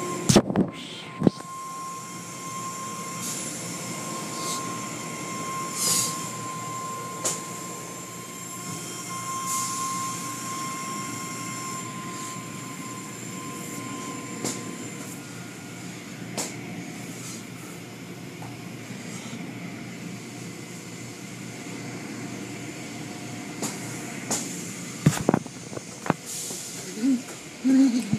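Automatic car wash heard from inside the car: water spraying and cloth wash strips sweeping over the body and glass, over a steady machinery noise. A faint steady whine runs through the first half, and there are a few sharp knocks near the end.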